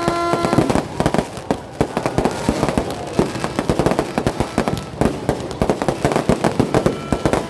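Fireworks and firecrackers going off in a dense, continuous barrage of bangs and pops, many a second. A brief steady tone sounds at the very start.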